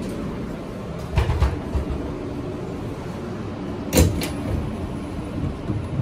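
Inside a Kawasaki R160B subway car standing in a station: a steady rumble with a few sharp clunks, a pair about a second in and the loudest about four seconds in.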